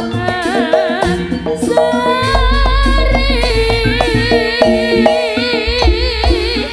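Javanese jaranan music: kendang hand drums playing a busy, driving pattern with gamelan tones underneath and a woman singing a wavering, ornamented melody over it. A deep bass comes in about two seconds in.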